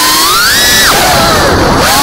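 FPV racing drone's brushless motors whining, the pitch climbing about half a second in and then dropping sharply just before one second as the throttle is chopped, then wavering with further throttle changes.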